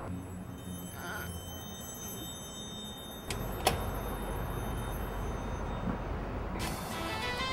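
Steady background noise with two sharp clicks about halfway through, then music with a clear tune coming in near the end.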